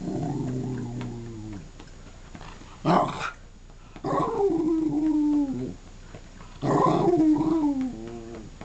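Whippet 'talking': three drawn-out, wavering grumbling howls. The second sinks and then holds one long note. A short sharp bark comes about three seconds in.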